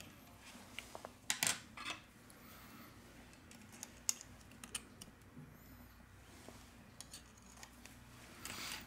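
Small clicks and scrapes of metal tweezers and a plastic pry tool working the loudspeaker module loose from a smartphone's frame. There is a louder scraping rustle about a second and a half in and another near the end.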